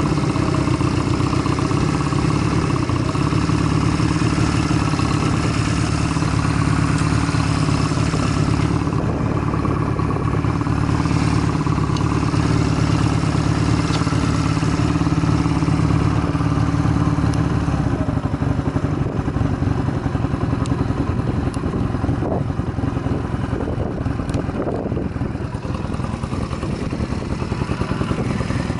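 Stock Honda Rebel 250 (MC13) air-cooled parallel-twin engine idling steadily, with no abnormal noise according to the seller. The sound eases slightly about two-thirds of the way through.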